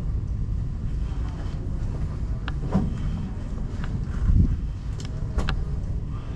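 Steady low rumble of an indoor airsoft arena, with a few sharp clicks scattered through it, the clearest about five and a half seconds in, and a dull thump a little after four seconds.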